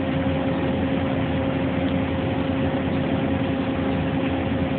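Steady machine-shop hum from running machinery, with a constant low whine held at one pitch.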